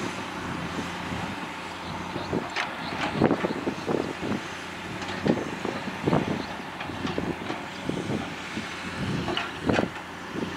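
Komatsu PC210 hydraulic excavator's diesel engine running steadily under load, with irregular clanks and knocks as its bucket digs into wet sand and mud.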